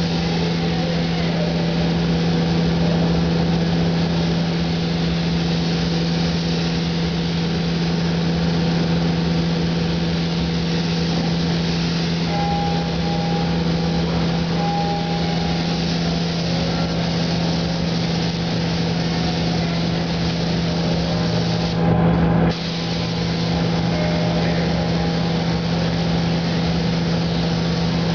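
Gravity-feed paint spray gun hissing steadily as compressed air atomises clear coat, over a steady low hum. The hiss cuts out once for under a second about three-quarters of the way through as the trigger is let off, then resumes.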